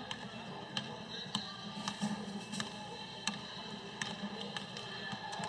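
Basketball dribbled on a hardwood gym floor: sharp bounces about every two-thirds of a second, over a faint steady background of game audio.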